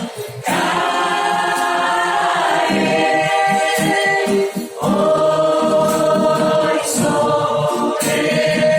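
A choir or congregation singing a Spanish worship song in long held notes, with instruments low in the mix. It breaks off briefly near the start and again about halfway through.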